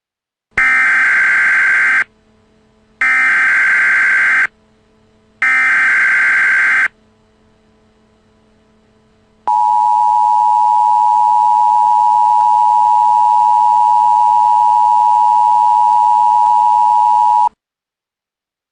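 Emergency Alert System tones: three identical bursts of SAME header data, each a harsh digital squawk about a second and a half long, then the two-tone attention signal, a steady dual-pitch drone held for about eight seconds before cutting off.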